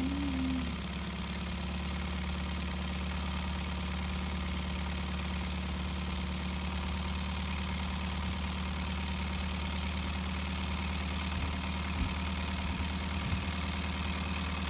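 Cyldon 13/2 model steam engine running steadily on steam on its first run after restoration, a fast, even mechanical beat from its cylinder and flywheel.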